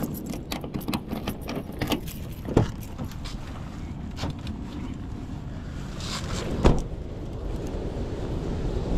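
A car door being handled: a run of small clicks and rattles, a sharp knock about two and a half seconds in, then the door shut with a thump nearly seven seconds in.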